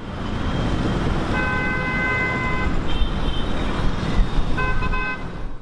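Road traffic rumbling steadily, with car horns sounding: one held for about a second and a half, a short higher toot, then a few quick broken toots near the end.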